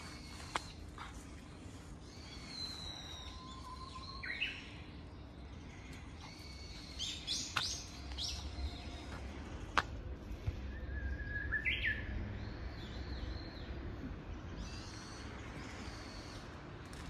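Japanese bush warbler (uguisu) singing its whistled "hoo-hokekyo" song twice, each phrase a low held note followed by a quick rising flourish. Other small birds chirp high and briefly between the phrases, and a couple of sharp clicks sound.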